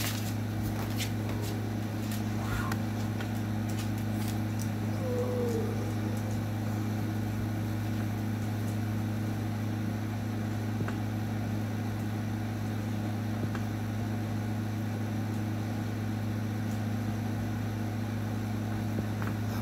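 A steady low electric machine hum, even and unbroken, with a few faint clicks near the start.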